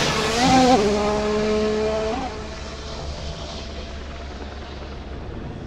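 Formula One car going past, its engine note stepping down in pitch about a second in, holding steady, then fading away about two seconds in.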